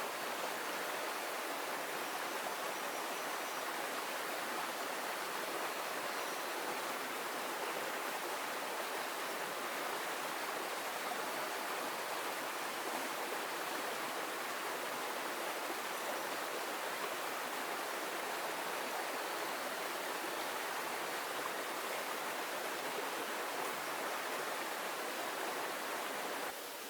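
Steady, unbroken rushing of water, even and constant throughout.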